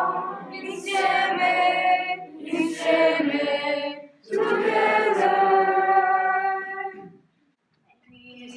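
A school choir of young teenagers singing in several held phrases. The singing stops briefly near the end, then the next phrase begins.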